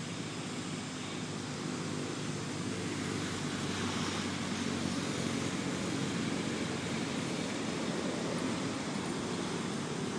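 Steady outdoor background noise with a low hum, growing a little louder a few seconds in.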